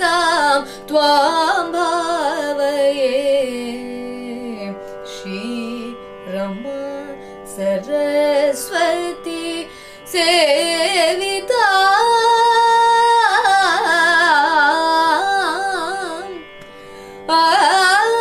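A woman singing a Carnatic raga, Nasikabhushani, in gliding, ornamented phrases over a steady drone, with a short pause near the end.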